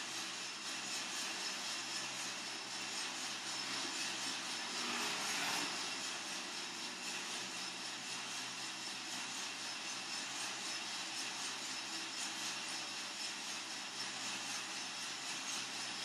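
Coffee-Tech FZ-94 lab drum coffee roaster running mid-roast: a steady mechanical noise from the drum and fan, briefly louder about five seconds in.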